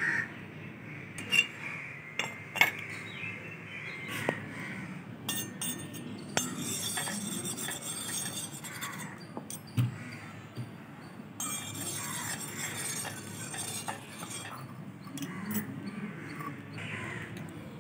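Small metal cooking utensils clinking and tapping: a steel spoon against steel bowls and a miniature iron pan. There are a few sharp clinks, with softer scraping and two stretches of faint hiss between them.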